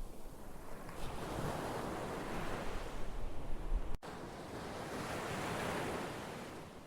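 Ocean surf: waves washing in as two swells of rushing noise, the second fading away near the end. The sound breaks off for an instant about four seconds in.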